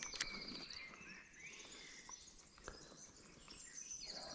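Faint outdoor ambience with small birds calling: a short, fast, high trill just at the start and again near the end, scattered faint chirps between, and a couple of soft clicks.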